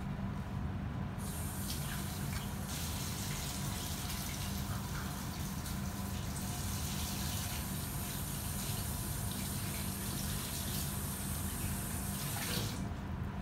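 Steady rush of running water, like a tap left on, starting abruptly about a second in and stopping abruptly near the end.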